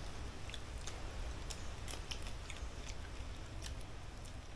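Small scattered clicks and crackles of blue swimming crab shells being picked and pulled apart by hand, with chewing.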